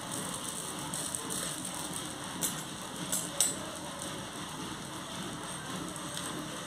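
A dosa sizzling with a steady hiss as it cooks on a small hot iron tawa. A few light metallic clicks come about two and a half to three and a half seconds in, as a steel spatula is set down.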